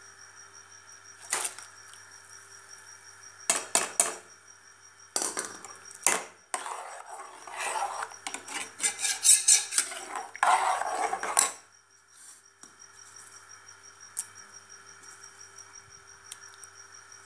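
Metal slotted spatula clinking and scraping against a metal bowl while stirring a thin white starch batter: a few separate clinks, then about five seconds of busy scraping and clattering in the middle.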